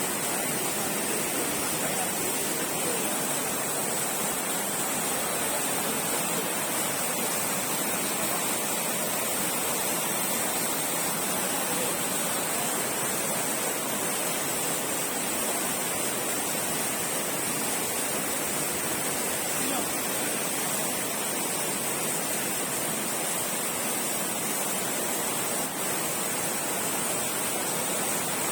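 Stream in flood after heavy rain, overflowing, its water rushing steadily without let-up.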